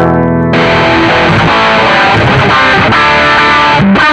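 Electric guitar played through a Nux MG-400 multi-effects unit, demonstrating its distortion effect. A clean chord rings at first, then about half a second in the tone turns dense and distorted.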